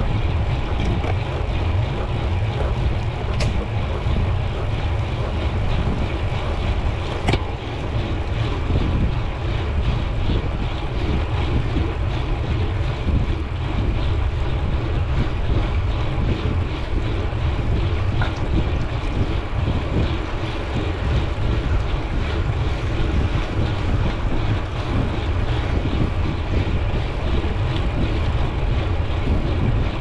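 Wind buffeting the microphone of a bicycle rider's camera while riding at speed, a steady rushing noise, with two sharp clicks about three and seven seconds in.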